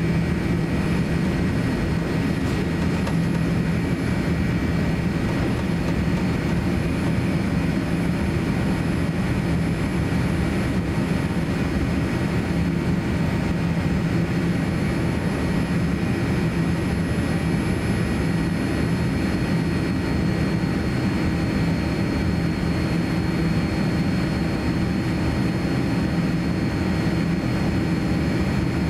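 Boeing 787-9 cabin noise while taxiing: a steady low hum of the jet engines and cabin air, with faint steady high-pitched whines above it. It stays even throughout.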